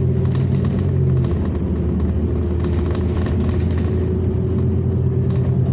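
Cabin noise of a New Flyer XN40 natural-gas city bus underway: a steady engine hum and road rumble. The engine's low hum eases off about a second in and picks up again near the end.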